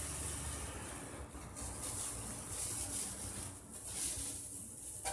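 Plastic-gloved hands rustling and pressing loose potting soil into a glass terrarium bowl, a soft irregular crumbling and crinkling over a low, steady rumble.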